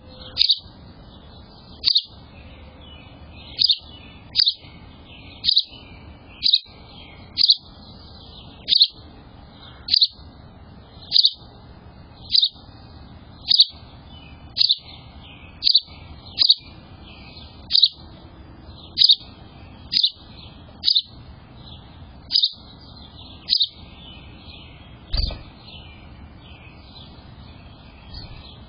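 A bird repeating one sharp, high chirp over and over, about once a second. A low thump comes a few seconds before the end.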